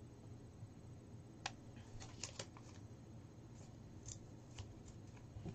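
Faint rustling and a few small crackles and ticks of paper slips being handled and unfolded.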